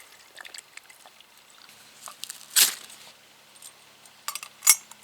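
Camping stove being handled and lit: small metallic clicks and knocks, with two short sharp strikes about two and a half and four and a half seconds in. A faint steady hum sits underneath from about two seconds in.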